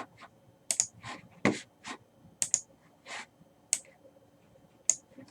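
A handful of light, irregular clicks and taps, spaced unevenly.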